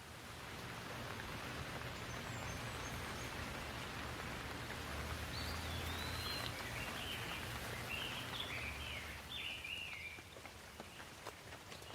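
Steady rain falling, with a bird singing a run of short chirps in the middle of the stretch and a few sharp drips near the end.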